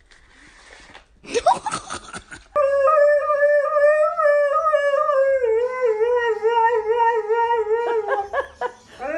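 A paper fries carton rustling and crackling as a small dog pushes its snout into it, then a husky howling: one long drawn-out note lasting about six seconds that wavers up and down, breaking into a few short yelps near the end.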